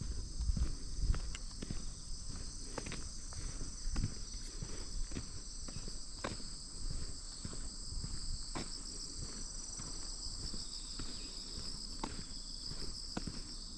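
Footsteps walking at an even pace, each step a soft crunch, under a steady high shrilling of autumn insects in the grass.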